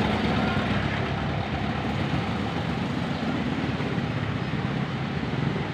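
A motor vehicle's engine running steadily while it rides through a flooded street, heard as even engine and road noise.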